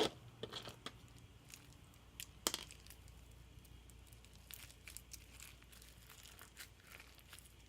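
Faint scattered clicks and rustles of things being handled and set down, with the strongest click about two and a half seconds in, over a faint steady hum.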